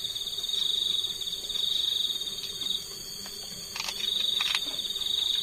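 Crickets trilling: a steady, high-pitched pulsing chirr that fades away for about a second a little past halfway, then resumes. A couple of faint clicks about four seconds in.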